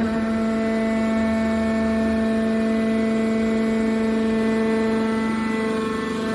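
Hydraulic baler's power unit running: a steady machine hum with a low whine of several even tones.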